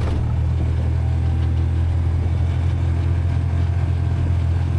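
Motorcycle engine running at a steady speed, a loud, even low drone with no change in pitch.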